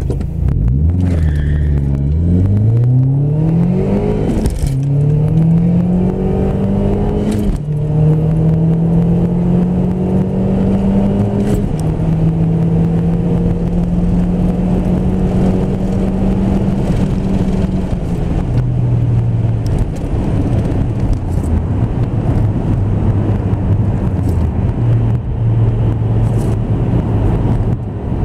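SEAT Leon Cupra Mk1 engine accelerating hard down a drag strip, its note climbing through the gears with four upshifts in the first twelve seconds. About eighteen seconds in the throttle is lifted and the engine drops to a lower, steady note.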